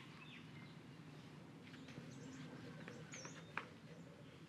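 Faint outdoor ambience of birds chirping: scattered short high chirps over a low steady hum, with one sharp click about three and a half seconds in.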